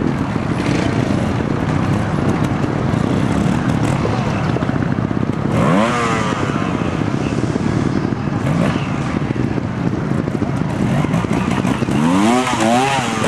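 Trials motorcycle engine running at low revs as the bike picks its way over the section, with a sharp rise in revs about six seconds in and a cluster of quick throttle blips near the end.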